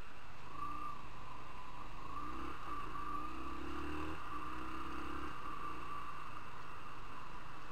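Motorcycle engine accelerating away, its note rising in steps with breaks between them, over a steady hiss from the bike-mounted camera. The engine note eases off a little after five seconds.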